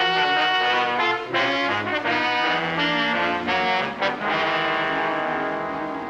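Brass orchestral music cue with trombones and trumpets, entering suddenly and moving through a few loud held chords, ending on a long held chord that slowly softens.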